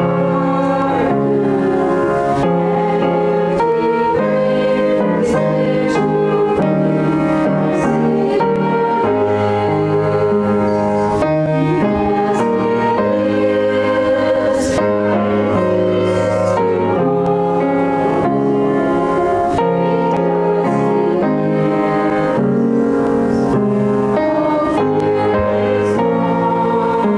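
A small group of women singing a hymn together with instrumental accompaniment of sustained chords and a moving bass line.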